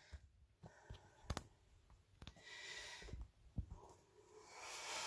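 Quiet room with a few faint, scattered clicks and two soft stretches of hiss, one about two and a half seconds in and one near the end.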